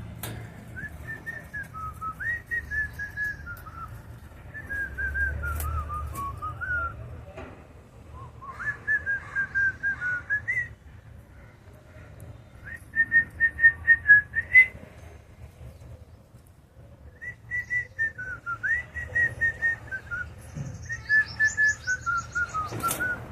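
Cockatiel whistling a tune in phrases of short, clear notes that step up and down in pitch, with pauses of a second or two between phrases.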